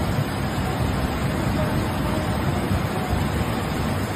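Muddy floodwater rushing past in a fast torrent: a steady, dense rushing noise with a heavy low rumble.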